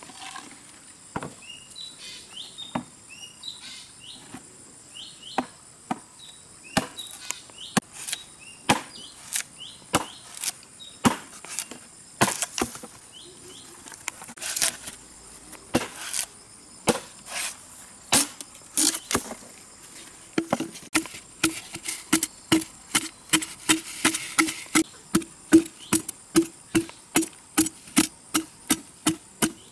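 Repeated chopping strikes on wood, irregular at first, then a steady beat of about two a second over the last third, each strike with a short ringing note. Birds chirp in the first few seconds over a steady high insect drone.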